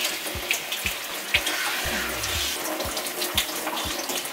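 Kitchen tap running in a steady stream into a stainless steel sink as kale leaves and then an apple are rinsed under it. A soft low beat, about two thumps a second, runs underneath.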